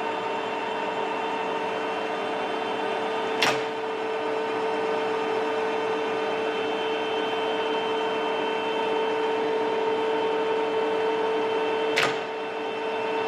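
Takisawa TSL-550 engine lathe running steadily, its headstock gearing giving a hum with fixed tones. Two sharp clicks come through, about three seconds in and near the end.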